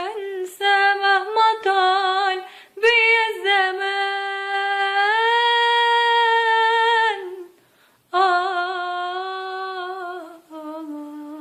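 A girl's solo voice singing unaccompanied in an Egyptian Arabic pop style, with ornamented runs and a long held note with vibrato in the middle. There are short breath breaks between phrases.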